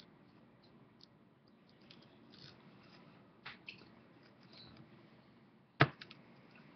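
Handling noise from a phone camera held close in among stiff palm fronds: faint scattered clicks and rustles, with one sharp knock near the end.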